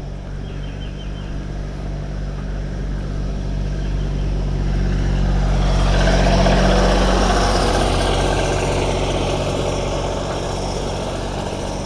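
Tractor engine running as it drives past, growing louder to a peak about halfway through and then fading away.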